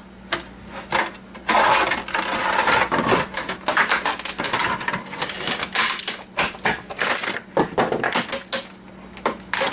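The casing of an old electronic device being pried apart by hand: a string of sharp clicks and knocks with stretches of scraping as the hidden catches resist opening.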